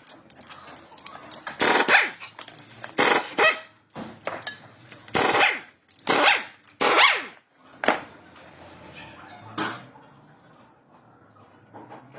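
A dog barking, a string of separate barks with short pauses between them, the last about ten seconds in.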